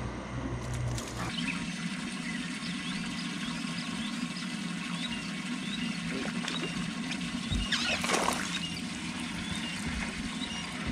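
Birds chirping over a steady low hum, with a short splash about eight seconds in as a hooked bluegill is pulled from the water.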